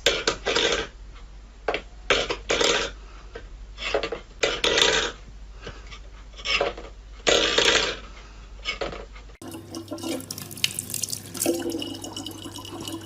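Water splashing in short irregular bursts, then after a sudden change, running water from a tap over a steady low hum.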